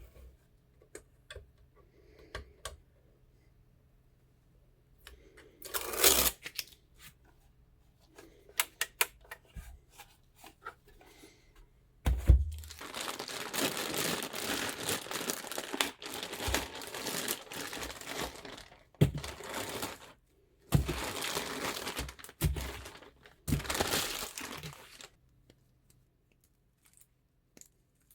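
Plastic packaging being crinkled and torn open by hand, with scattered light clicks and taps. The crinkling runs in long stretches through the second half.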